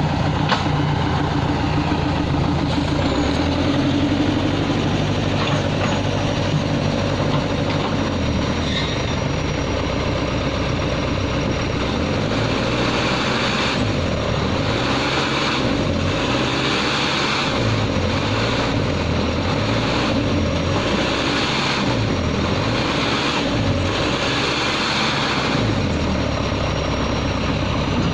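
Backhoe loader's diesel engine running steadily. In the second half its speed dips and recovers again and again, about every two seconds, as if working under repeated load.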